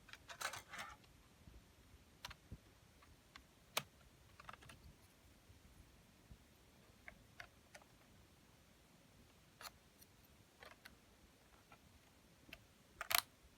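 Faint, scattered small clicks and taps of a laptop being handled, with a short cluster of louder clicks near the end.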